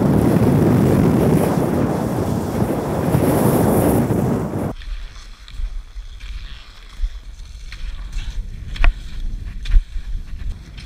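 Cross-country skiing heard through a head-mounted action camera: a loud rush of wind and skis on snow for the first few seconds, cutting off abruptly. After that, quieter gliding on the track with a few sharp clicks.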